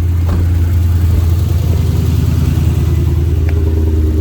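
A car engine idling steadily, with a faint click about a third of a second in.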